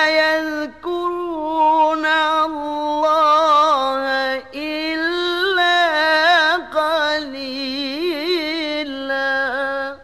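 Male Quran reciter's voice chanting in the melodic tilawah style, holding long notes with wavering pitch and quick ornamental turns, and breaking off briefly three times between phrases.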